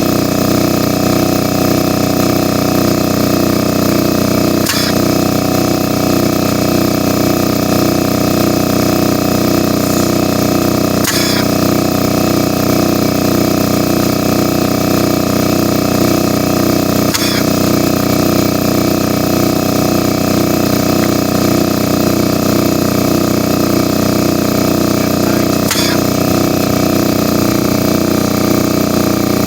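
Electric piston air compressor running steadily with a fast rhythmic pulse, with four faint sharp clicks spaced several seconds apart.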